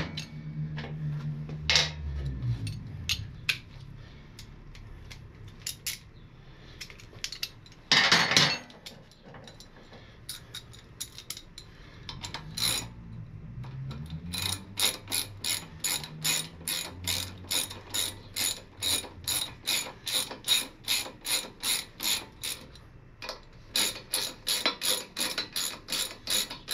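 Hand socket ratchet clicking as it runs in the front brake caliper mounting bolts, bringing them down evenly before they are torqued. Scattered clicks and a single louder noise about eight seconds in give way, about halfway through, to steady ratcheting at about three clicks a second, with a short pause near the end.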